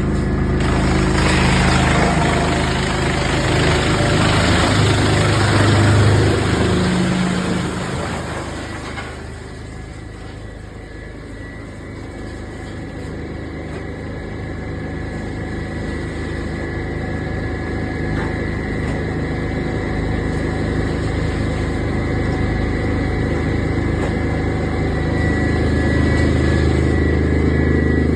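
Wood chipper's engine running steadily. A loud rough noise rides over it for the first eight or nine seconds, then drops away, and the running grows gradually louder toward the end.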